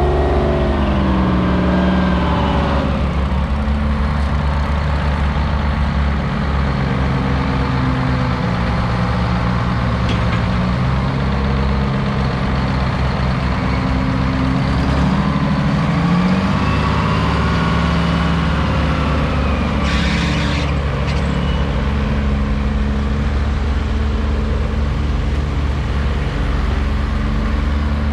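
Vintage Euclid rock truck's diesel engine running as the truck moves slowly past, its pitch rising and falling a couple of times as it is revved. A brief hiss of air is heard about twenty seconds in.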